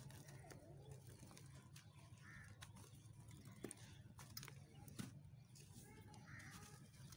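Faint crunching and crackling of a dry lump of white cement being crumbled by hand, with a few sharp cracks around the middle as pieces break off.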